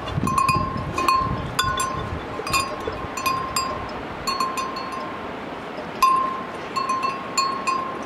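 A metal bell hanging on a dog's neck clinks over and over as the dog eats from a steel bowl. The strikes come about twice a second with a lull in the middle, and there is a low rustle of eating in the first couple of seconds.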